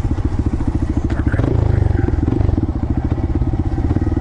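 Honda Grom's small single-cylinder engine running as the bike rides along, with a fast, even exhaust pulse that swells slightly about a second and a half in.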